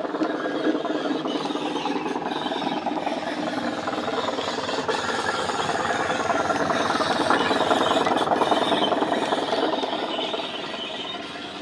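Sound-fitted Bachmann Class 205 'Thumper' DEMU model running past on the track, its decoder playing the diesel engine sound through a small speaker, mixed with the whirr and clatter of the model's gears and wheels. It grows loudest as the model passes close, about eight seconds in, and fades near the end.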